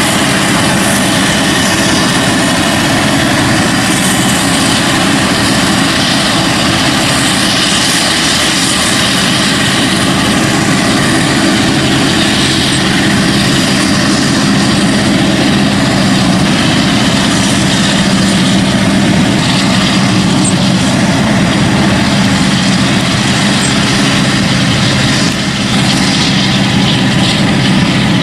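Heavy diesel farm machinery, a forage harvester with tractors, running steadily at working revs while harvesting maize: a loud, even engine drone throughout.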